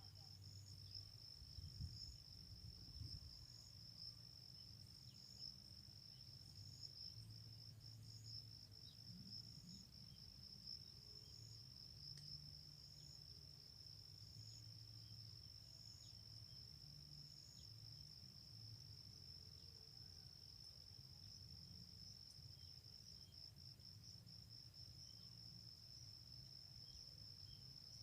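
Faint, steady high-pitched insect trill, with a second insect's short chirps repeating about every one and a half seconds for the first two-thirds. Under it is a faint low rumble.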